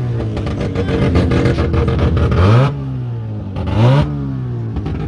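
Rotary engine of a Mazda Bongo van revving hard during a burnout: two sharp rev blips, about two and a half and four seconds in, each dropping away, with a rapid crackle from the engine between them.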